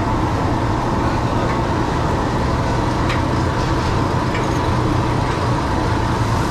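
Steady, loud mechanical drone of a commercial kitchen's ventilation and exhaust fans, with a low hum under it. A few faint metal clinks of cooking utensils sound now and then.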